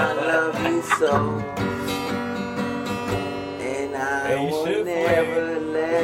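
Acoustic guitar strummed steadily, with a man singing over it.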